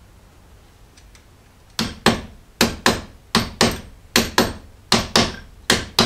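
A new battery terminal clamp being tapped down onto the negative battery post so it sits flush: about ten sharp metal taps in quick pairs, starting about two seconds in.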